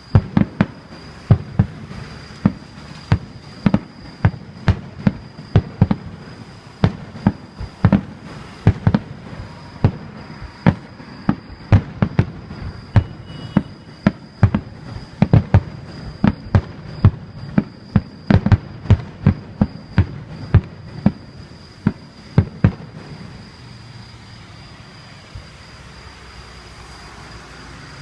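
Aerial fireworks bursting in rapid succession, a long run of sharp bangs, often two or three a second. The bangs stop about five seconds before the end.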